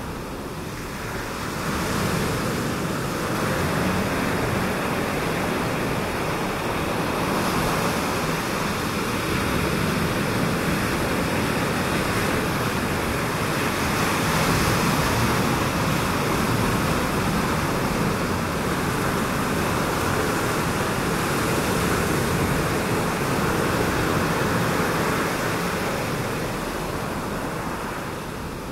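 Ocean surf breaking over a shallow reef: a steady rushing wash that slowly swells and eases.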